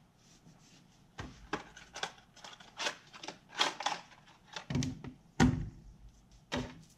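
Hand-handling of a new saw chain and chainsaw parts on a work surface: irregular clicks and light rattles, with heavier thunks about four and a half and five and a half seconds in and again near the end.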